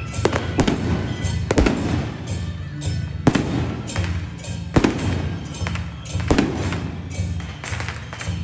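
Firecrackers going off in scattered sharp bangs, roughly one a second, over loud music with a pulsing low beat.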